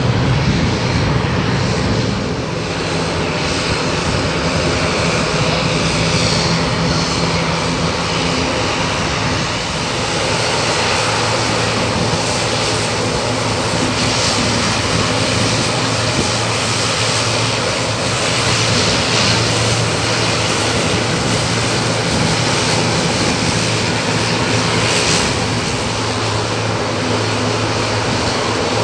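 Airbus C295M's twin Pratt & Whitney PW127G turboprop engines running with a steady propeller drone, its tone stepping lower about ten seconds in.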